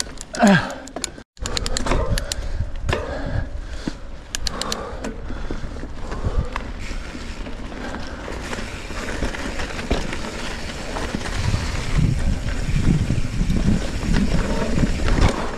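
Trek Fuel EX 7 mountain bike rolling over a wet, muddy trail: tyre noise and rattling of the bike, with a run of sharp clicks in the first few seconds.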